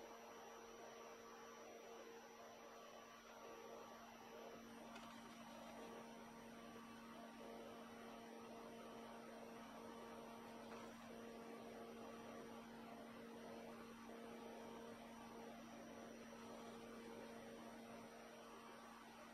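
Faint steady hum of a Grizzly G0766 wood lathe running with a bowl spinning on it.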